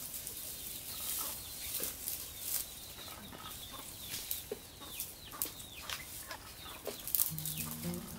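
Dry twigs and brushwood rustling and crackling as they are handled and piled, with chickens clucking in the background. A low steady hum comes in near the end.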